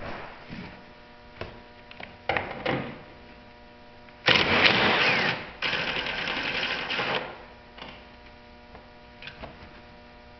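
Cordless impact driver running twice on a taillight fastener in a car's trunk, first for about a second, then after a short break for about a second and a half. A few light clicks of handling come before it.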